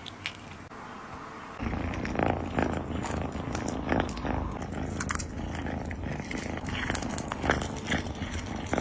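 Cat chewing a cooked shrimp close to the microphone, with many small wet clicks. From about a second and a half in, a steady low purr runs under the chewing.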